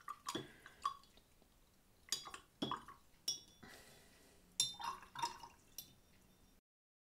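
A paintbrush rinsed in a glass water jar: scattered light clinks, taps and drips, about eight to ten, over six seconds. The sound stops dead near the end.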